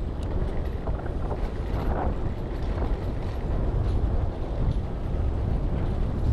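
Steady low rumble of a bicycle rolling over brick pavement, mixed with wind buffeting the camera microphone, with a few faint clicks and rattles.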